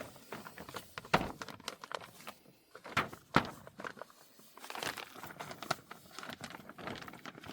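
Greenhouse polyethylene plastic sheeting crinkling and rustling, in irregular sharp crackles.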